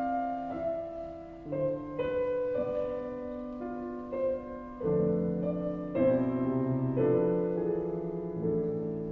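Slow, gentle solo piano music: sustained chords and melody notes, changing about every second.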